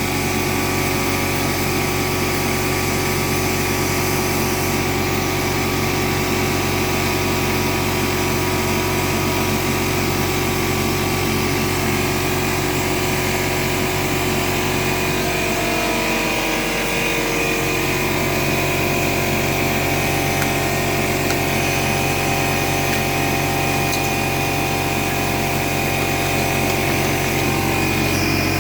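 Steady machine hum with several fixed tones that hold throughout, wavering briefly about halfway through.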